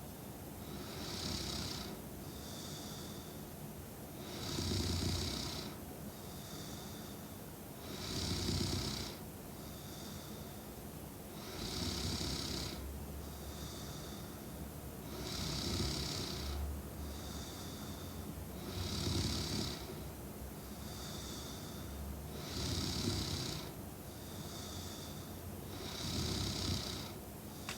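A young woman snoring in her sleep in a slow, even rhythm, with a loud snore about every three and a half seconds. Between the snores come quieter breaths with a faint high whistle.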